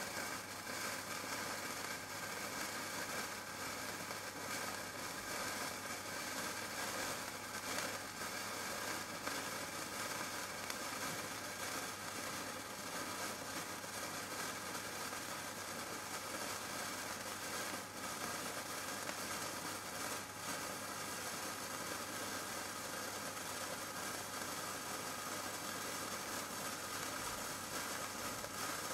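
Handheld sparkler burning with a steady fizzing hiss and fine crackle, over a constant low hum.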